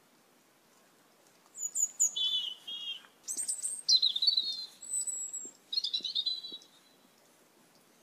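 Asian glossy starlings calling: a run of sharp, high whistled calls, several of them dropping in pitch, beginning about a second and a half in and lasting about five seconds.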